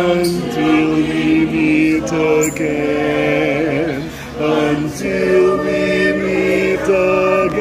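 A group of people singing together with long held notes, the pitch wavering on some of them, and a short breath break about halfway through.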